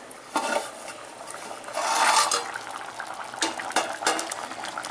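Aluminium plate lid clinking against a pot of thick curry and being handled, with a louder noisy stretch about two seconds in. It ends with a few sharp pops as the thick kulambu boils.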